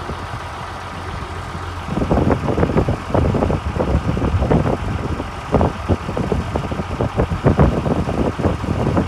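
Heavy diesel engine running steadily. About two seconds in, loud irregular knocking and rumbling starts on top of it.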